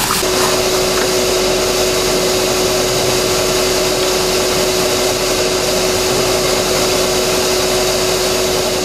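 6-gallon Shop-Vac wet/dry vacuum running steadily: a rush of air with a steady whine.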